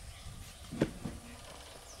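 Two sharp knocks from building work, a loud one just under a second in and a lighter one a quarter second after, over faint high bird chirps.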